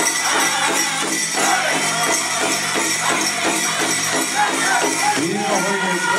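Powwow drum group playing a grand entry song: a steady drumbeat under group singing, with the jingle of the dancers' bells.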